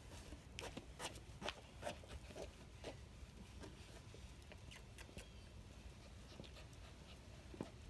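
Light, irregular clicks and taps of a small puppy's paws and claws on a hard floor, packed most closely in the first three seconds and sparser after that.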